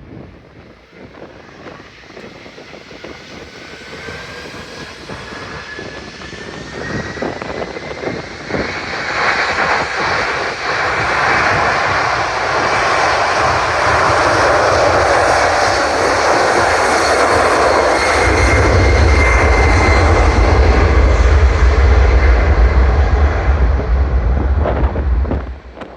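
Boeing 747-400F's four jet engines on takeoff, growing steadily louder, with a fan whine rising in pitch over the first several seconds. A heavy low rumble joins about two-thirds of the way through, and the sound cuts off abruptly just before the end.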